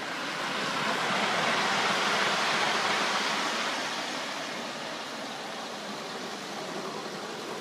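Gauge one live steam model of NSWGR locomotive 3237 and its coaches running past on the garden track: a steady rushing noise that swells to its loudest about two to three seconds in, then eases off as the coaches roll by.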